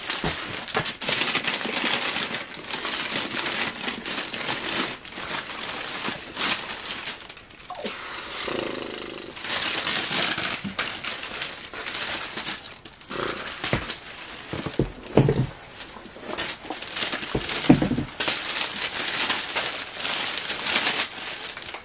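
Packing paper rustling and crinkling as a pair of sneakers is unwrapped and lifted from its box, with two louder knocks past the middle.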